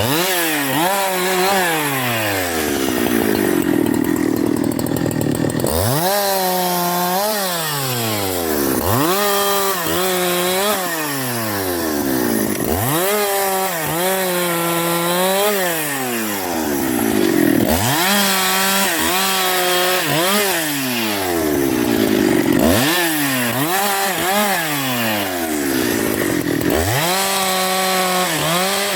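Husqvarna 372 XP two-stroke chainsaw revved repeatedly: the engine climbs to full throttle, holds there a moment, then drops back toward idle, over and over every few seconds.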